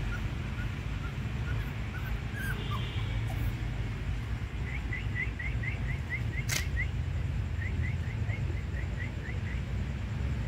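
Runs of short, high chirps repeating about three times a second, over a steady low rumble, with one sharp click about six and a half seconds in.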